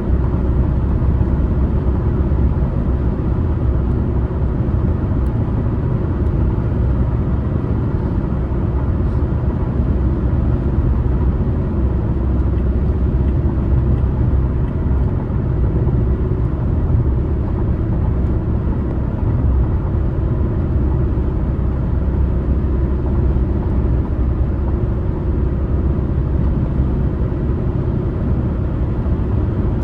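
A car driving along a highway: a steady, even low rumble of tyres on the road and the engine, with no change in speed.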